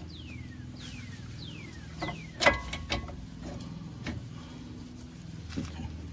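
Metal clanks and clicks as a Honda Pilot front brake caliper is slid over the new pads onto its bracket. The loudest is a sharp clank with a short ring about two and a half seconds in. A run of high falling whistles in the first two seconds sits over a steady low hum.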